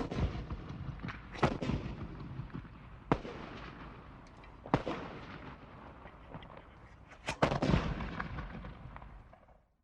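Rifle shots at an outdoor firing range: about seven shots from several shooters at irregular intervals, two of them close together, each followed by a long rolling echo. The recording fades out near the end.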